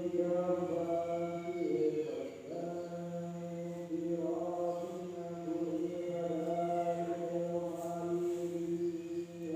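Voices chanting in long held notes that shift pitch a few times, with a faint steady high-pitched tone underneath.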